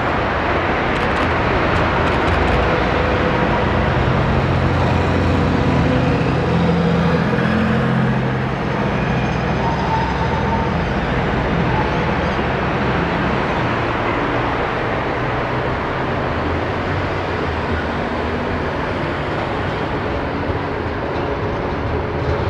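Street traffic noise: cars and electric light-rail trams passing on a city road, a steady mixed hum of engines and tyres that eases slightly about eight seconds in.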